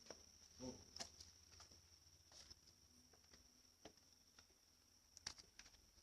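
Near silence: a faint steady high-pitched tone, with scattered faint clicks and ticks, the sharpest about five seconds in.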